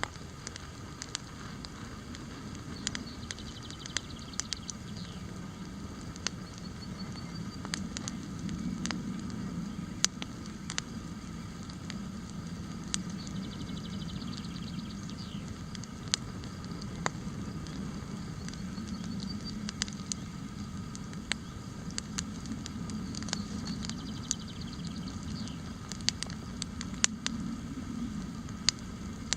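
Wood campfire crackling, with sharp, irregular pops over a steady low rush of burning. A bird sings faintly several times.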